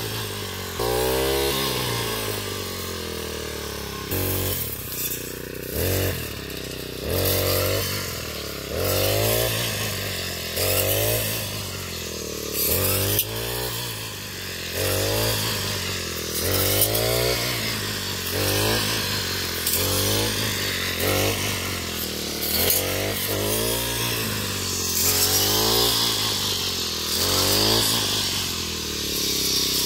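Backpack brush cutter's small engine revving up and down over and over, about every second and a half, as its blade swings through standing wheat stalks.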